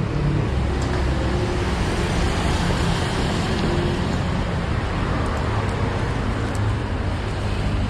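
Steady road traffic noise from passing motor vehicles, with a low engine hum underneath.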